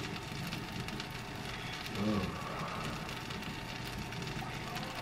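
Steady, even sizzling hiss of a hot frying pan on the stove, with a short faint voice about two seconds in.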